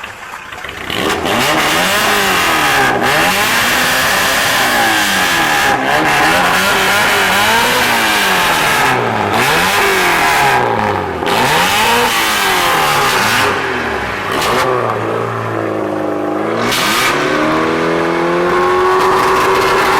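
A tuned car's engine being revved over and over, its pitch climbing and falling back about every two seconds. Near the end the revs dip, then climb and hold at a steadier, higher pitch.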